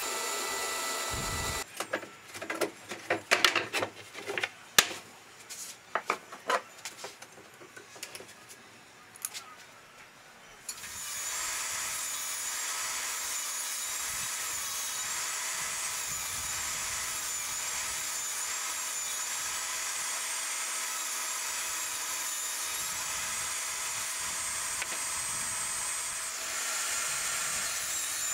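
A run of irregular sharp knocks and clatters for several seconds, then, about eleven seconds in, a jobsite table saw starts and runs steadily with a high wavering whine.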